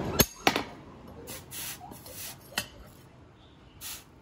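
Two sharp knocks in quick succession, then a few short hissing scrapes and one more knock about halfway through.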